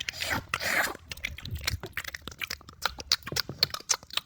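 Someone eating a sticky banana, peanut butter and oat mixture: quick wet mouth clicks and chewing, with a louder smacking burst in the first second.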